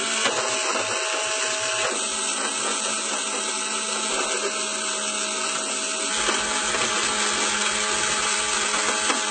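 Toy vacuum cleaner's small electric motor running with a steady whir.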